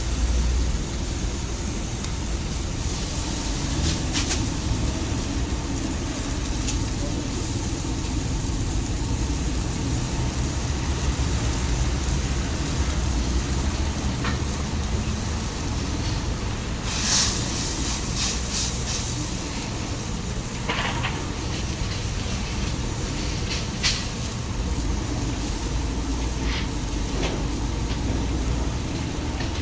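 Steady low rumble and hiss of a street-food stall's surroundings, with a few short clatters a little past halfway and once more later.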